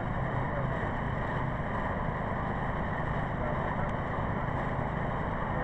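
Engine running steadily: a low, even drone that does not change.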